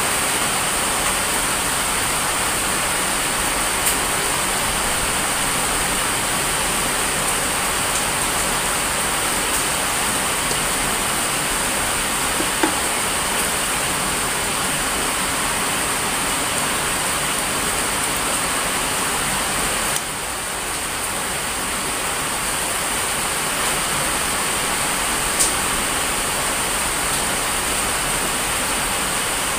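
Steady rain falling, an even hiss with no let-up, with a few faint light knocks.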